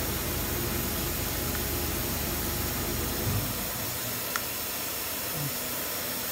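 Steady hiss with a low hum from the MultiCam MG-205 CNC router's Z-axis ball-screw drive as it jogs the spindle head; the hum stops a little under four seconds in, and the axis itself is virtually silent. A faint tick comes shortly after.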